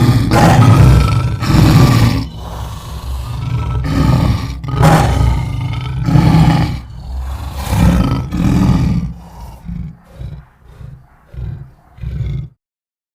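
Lion roaring: several long, deep roars, followed by a run of short grunts spaced about half a second apart, which cut off suddenly near the end.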